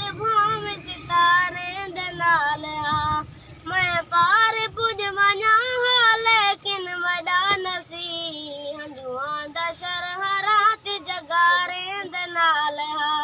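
A boy singing a sad Saraiki lament in a high voice. He holds long notes with a wavering, ornamented pitch, in phrases a few seconds long with short breaks between them.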